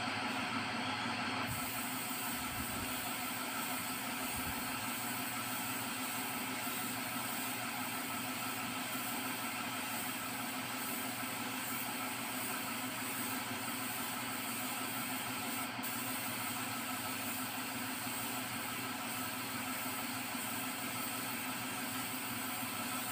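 Paint spray gun hissing steadily as it sprays the colour coat onto a car bumper, over the steady running of an air compressor. The hiss brightens about a second and a half in.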